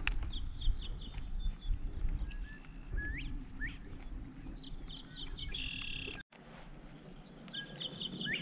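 Several songbirds chirping and calling, with short rising whistles and a buzzy trill a little before a brief break about six seconds in, over a low background rumble.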